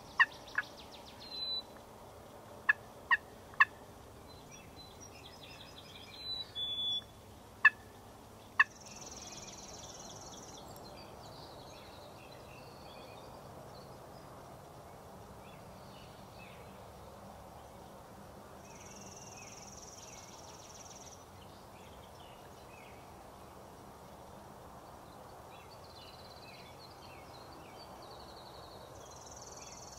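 Wild turkey calling: loud, sharp, short notes in runs of two or three during the first nine seconds, then it stops. After that, a quiet outdoor background with a faint high trill recurring about every ten seconds.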